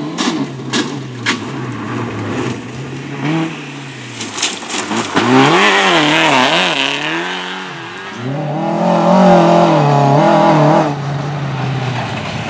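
Rally car engine revved hard, its pitch swooping up and down again and again as the throttle is worked, with a few sharp cracks near the start. A hiss of tyres on the surface about halfway through.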